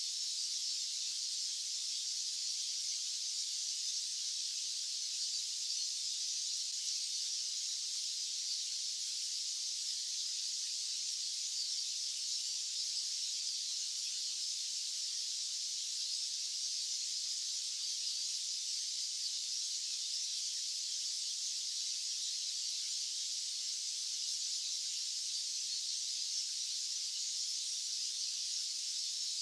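White-noise track: a steady, high-pitched hiss with no low end, unchanging throughout.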